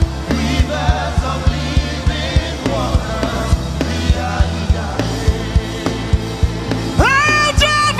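Live gospel worship music: a band plays a fast, steady drum beat over bass and keyboard while voices sing. About seven seconds in, a lead singer comes in loudly with a phrase that swoops up in pitch.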